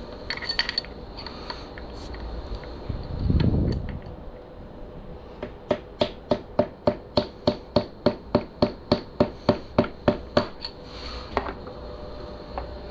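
Hand-tool work on a dirt bike's steering stem and fork clamps during tightening: a short low rub about three and a half seconds in, then a run of about twenty sharp metallic clicks, about four a second, lasting some five seconds.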